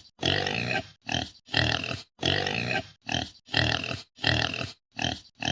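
A jaguar's sawing call: a run of about ten deep, hoarse grunts, one after another every half second or so.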